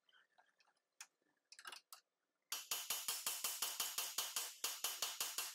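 Ratchet wrench clicking rapidly as a nut is run on, about seven clicks a second, starting about halfway in after a few scattered clicks.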